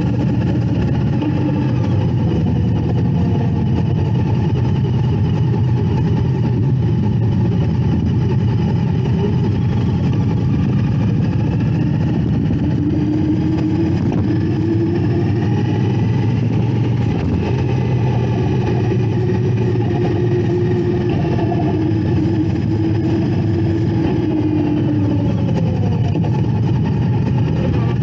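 Indian Scout Bobber's V-twin engine running steadily while riding at road speed, its pitch drifting up and down with the throttle in the second half and rising near the end as it accelerates.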